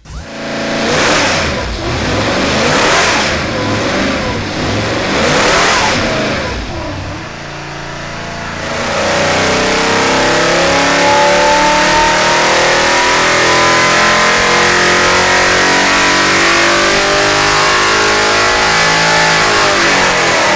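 Holden 308 V8 on an engine dyno, breathing through a 650 Holley four-barrel carburettor on a one-inch spacer. It revs in three short surges about two seconds apart, then from about nine seconds runs a full-throttle power run, its pitch climbing steadily as the revs sweep up under load, and falls away as the throttle is closed near the end.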